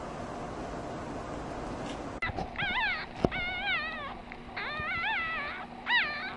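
A puppy whimpering: several high, wavering whines one after another, beginning about two seconds in after a steady hiss.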